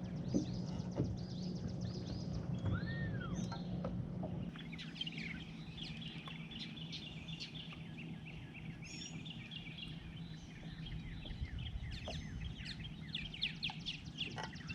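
Small birds chirping and calling over and over, with a low steady hum that cuts off about four seconds in.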